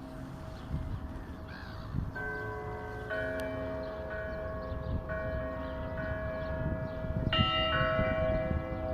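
Church bells ringing: several bells of different pitch struck in turn, with fresh strokes about two, three, five and seven seconds in, each left to ring on and overlapping the others.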